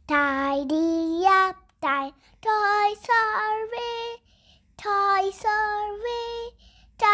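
A young child singing in a high voice: a run of short sung phrases with held and gliding notes and brief pauses between them.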